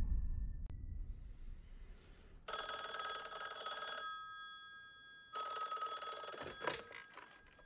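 Black rotary desk telephone ringing twice, each ring about a second and a half long, then a short clatter as the handset is lifted near the end. A low rumble fades out before the first ring.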